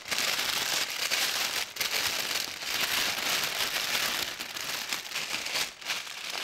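Cellophane gift bag crinkling and crackling continuously as hands gather and pull up its loose top into a bunched neck, with a few brief pauses in the rustling.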